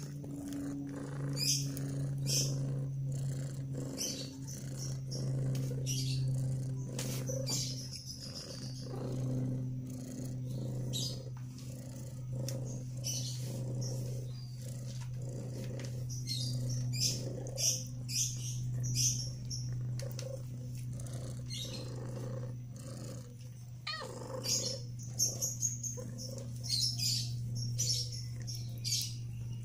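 Domestic cat purring steadily, the purr slowly swelling and fading, with many short high-pitched squeaks from three-week-old kittens at play.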